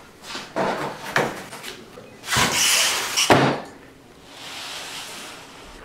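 A drawer slides for about a second and ends in a sharp knock a little past the middle. Then comes a softer brushing slide of a paper folder pushed across a tabletop.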